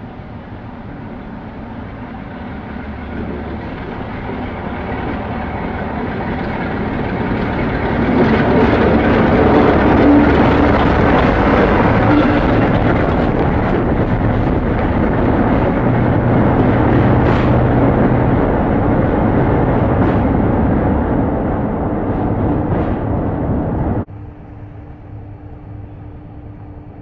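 Class 47 diesel locomotive with its Sulzer twin-bank 12-cylinder engine running as it moves along the track, growing steadily louder for several seconds and then staying loud and close. Near the end it cuts off abruptly, leaving a quieter steady hum.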